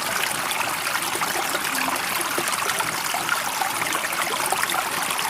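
Steady flowing water, a continuous trickling and babbling like a stream, with no rise and fall of waves.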